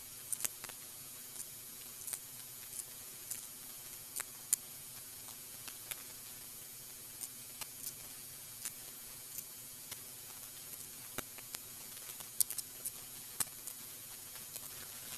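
Faint, irregular light clicks and scratchy ticks from a paintbrush working oil into a wooden crossbow pistol frame as it is handled, over a steady low hiss.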